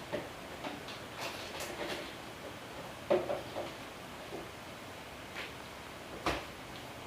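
A sleeping pug snoring: short snorting breaths about every three seconds, the loudest about three seconds in, with softer sounds between them.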